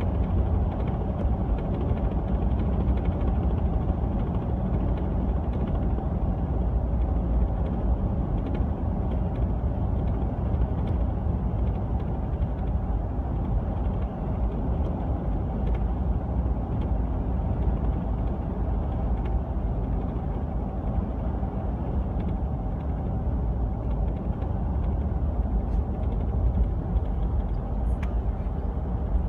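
Steady road and engine noise of a 2015 Ford F150 on the move, with faint scattered rattles from its LEER Bulldog canopy. The owner traces the rattle to the canopy, since it stops when the canopy is off.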